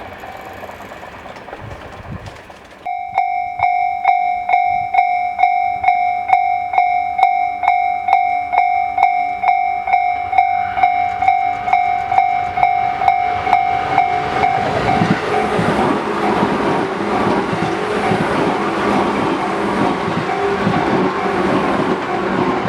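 A Japanese level-crossing alarm starts about three seconds in, ringing steadily at a little over two strikes a second. About halfway through, an electric commuter train arrives and runs over the crossing, its wheels clattering over the rail joints, with the alarm still ringing underneath.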